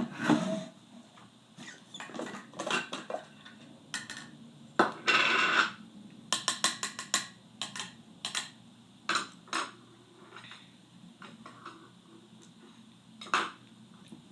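Clinks, knocks and clatter of a glass jar of iced soda being handled, with a short rushing noise about five seconds in and a quick run of rattling clicks just after.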